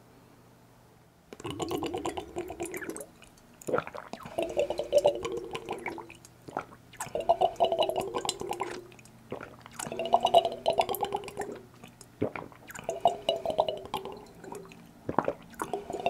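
Close-miked drinking from a two-spouted glass cruet: repeated bouts of gurgling glugs and swallows as liquid pours from the spout and air bubbles back into the glass bottle. The first bout starts about a second in, then one comes roughly every three seconds, each lasting one to two seconds.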